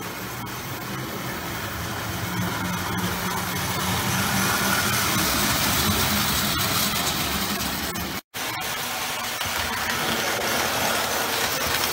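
A 1935 Lionel Red Comet O-gauge tinplate train runs on three-rail track: a steady motor hum under the rumble of metal wheels on the rails, growing louder over the first few seconds as the train comes closer. The sound breaks off for an instant about eight seconds in, then carries on.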